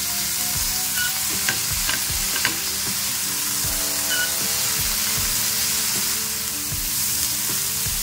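Chopped onion, capsicum and tomato sizzling in a nonstick frying pan over high heat while being stirred with a plastic spatula. A few light taps of the spatula on the pan come in the first few seconds.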